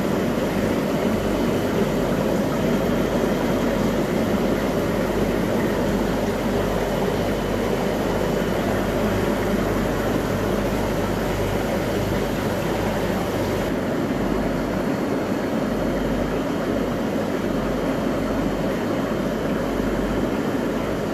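Steady rushing hum of aquarium equipment, air pumps and filters, running without a break. It turns slightly duller about two-thirds of the way through.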